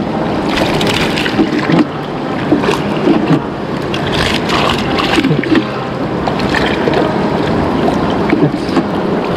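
Fast river water rushing steadily around a wading angler, with frequent small splashes and knocks as hands and an ayu move in a wet landing net.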